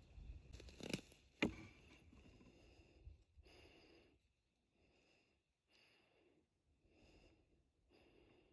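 Faint breathing close to the microphone, soft puffs repeating about once a second. Two sharp clicks come about a second in.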